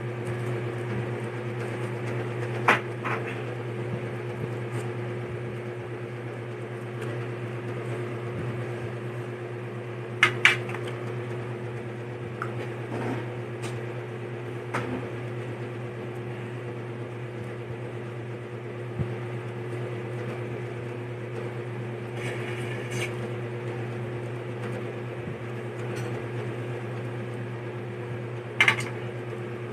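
Steady electric hum of a room appliance such as a fan or air conditioner. A few short, sharp sounds break in about four times, the loudest around a third of the way in.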